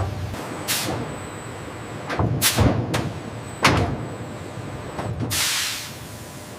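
Mechanical knocks and clanks, a few sharp ones spread through, then a rush of hissing air about five seconds in, over a faint steady high whine.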